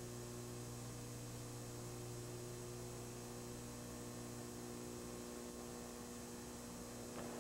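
Faint, steady electrical mains hum over hiss on the recording. The lowest hum tone drops away about five seconds in.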